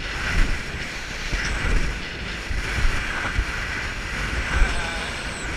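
Wind buffeting the microphone on a rigid inflatable boat underway through choppy sea, with water rushing past the hull.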